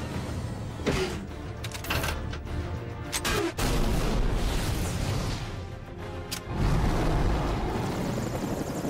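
Action-film soundtrack: music under heavy explosion booms, one about three and a half seconds in and another about six and a half seconds in, with several sharp cracks and impacts between them.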